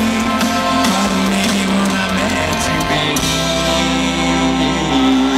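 Rock band playing live and loud: electric guitar and drums.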